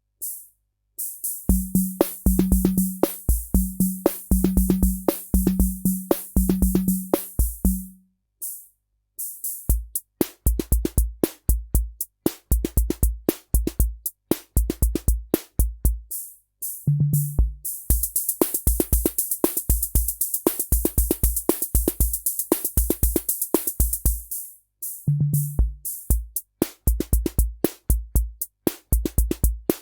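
Korg SR-120 Mini Pops analog drum machine playing its Rock rhythm patterns: steady bass drum hits under hi-hat and long cymbal hiss, with short runs of a pitched drum fill. The pattern breaks off briefly and restarts a few times.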